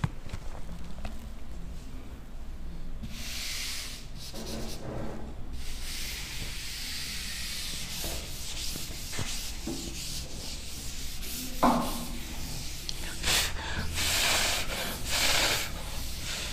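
A handheld chalkboard duster rubbing across a blackboard, wiping off chalk in several long scrubbing passes. One brief, louder sound comes about two-thirds of the way through.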